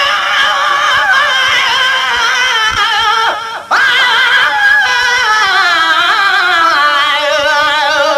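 Sindhi naat sung by a single voice: long held notes with a heavy wavering vibrato, broken by a short breath about three and a half seconds in, then a line that slides slowly down in pitch toward the end.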